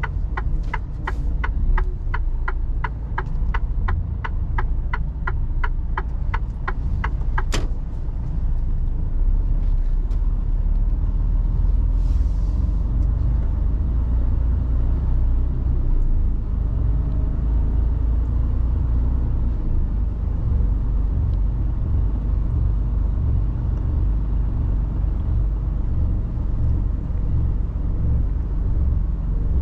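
Inside a Mercedes Actros truck cab: the turn-signal indicator ticking evenly, about two or three ticks a second, for the first seven seconds or so, ending with a louder click. Under it the steady low rumble of the truck's engine and tyres at slow speed, with a short hiss about twelve seconds in.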